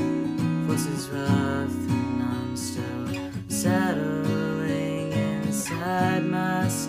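Acoustic guitar strummed in a steady chord pattern, with a solo voice singing softly over it from about halfway through.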